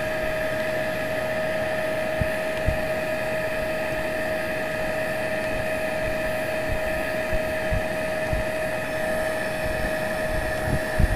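Electric heat gun running steadily, blowing hot air to soften the battery box lid: a constant whine over rushing air. A few soft knocks come through, most near the end.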